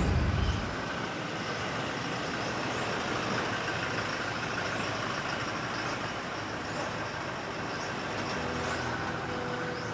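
A Toyota Fortuner SUV rolling slowly along a street and pulling up: steady engine and tyre noise, with a short low rumble at the very start.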